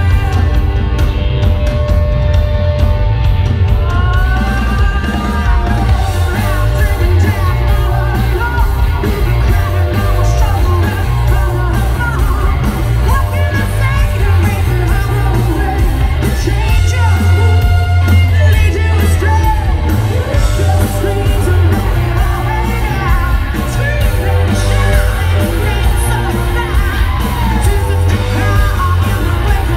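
Live rock band playing loud: a woman singing and belting over electric guitars, bass and drums, with heavy low end through the stage PA.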